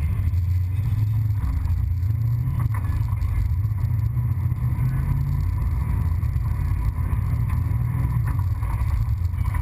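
Super Late Model race car's V8 engine running low and steady as the car rolls slowly at low speed.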